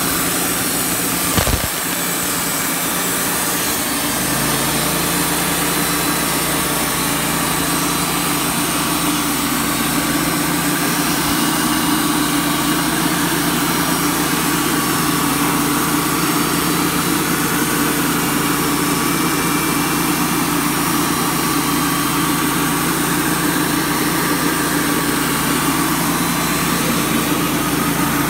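Wood-Mizer LT35 portable band sawmill running steadily as its band blade saws through a wide cant, the engine holding a constant note. A single sharp knock sounds about a second and a half in, and a lower steady hum joins about four seconds in.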